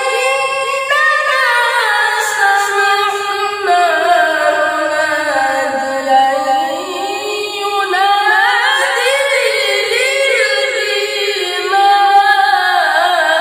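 A young boy's unaccompanied voice reciting the Quran in melodic tilawah style. It is one long, ornamented line whose pitch sinks lowest about halfway through and then climbs back up.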